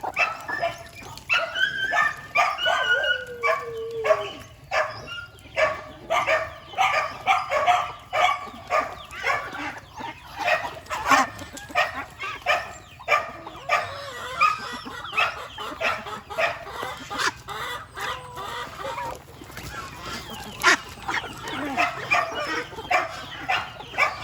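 Farmyard poultry calling and clucking, a dense run of short calls one after another, with one longer falling call a few seconds in.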